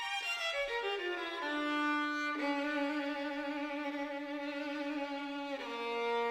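Background music led by a violin: a few notes stepping down in pitch, then long held notes over a sustained chord that shifts twice.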